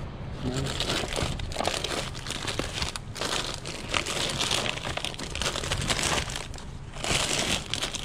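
Plastic snack bags and candy wrappers crinkling and rustling as a gloved hand digs through them, in irregular bursts with a couple of brief pauses.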